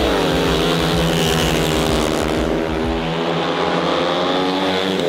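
Speedway motorcycles, 500 cc single-cylinder methanol-burning four-stroke engines, running flat out as the riders race away from the start into the first bend. The engine note is steady and high-revving, dipping slightly in pitch during the first second.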